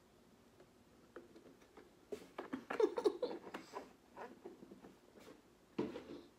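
A plastic milk jug being lowered and set down after a drink: a cluster of small irregular knocks and crinkles, with soft mouth and swallowing sounds. A short voiced exhale comes near the end.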